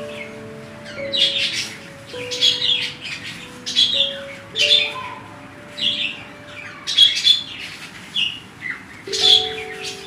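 Budgies chirping and chattering in short calls about once a second, over soft background music with long held notes.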